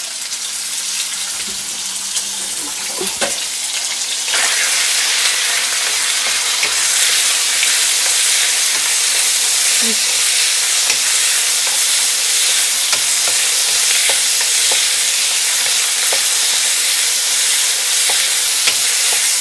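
Raw chicken breast strips sizzling in hot oil in a nonstick pan, growing louder about four seconds in and then steady, with a wooden spatula tapping and scraping as the strips are spread out and stirred.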